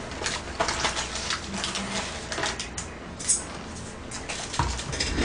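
Close-miked handling of takeout food packaging: crackles and clicks from a paper food box and a plastic tteokbokki tray, mixed with chewing and lip-smacking. A dull knock comes about four and a half seconds in.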